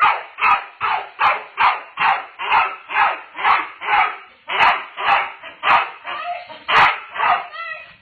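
A dog barking over and over in a fast, steady rhythm, about two to three barks a second, stopping shortly before the end.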